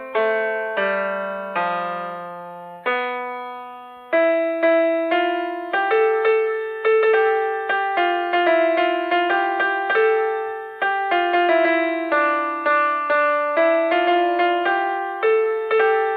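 Background music: a piano-like keyboard melody of struck notes that die away, slow for the first few seconds, then moving to quicker notes.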